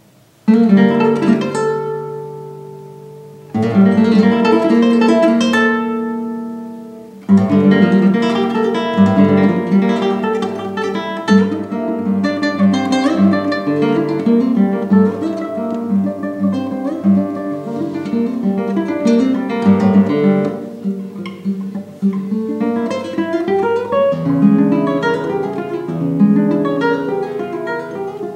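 Classical guitar played solo: a loud chord about half a second in and another about three and a half seconds in, each left to ring and fade. From about seven seconds a dense stream of plucked notes follows, with a rising run about two-thirds of the way through and ringing chords near the end.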